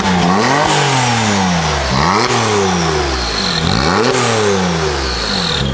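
Porsche GT2's twin-turbo flat-six, through Akrapovic exhausts, being revved in quick blips about every two seconds: each time the revs shoot up sharply and then fall back slowly.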